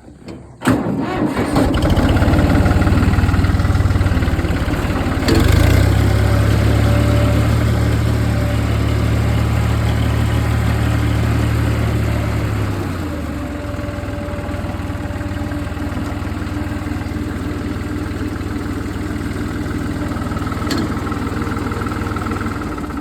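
Tractor engine starting about a second in and running steadily, with a change in engine note about five seconds in, then throttled down to a lower, quieter idle around the middle.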